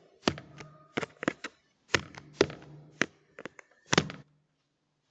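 A kitchen knife striking and stabbing at a Ring doorbell camera, picked up by the camera's own microphone: about nine sharp, irregular knocks over four seconds, with a faint steady hum underneath.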